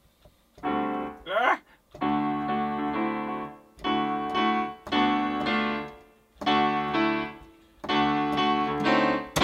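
Digital piano playing slow, held chords in short phrases with brief pauses between them: the first bars of a song still being written.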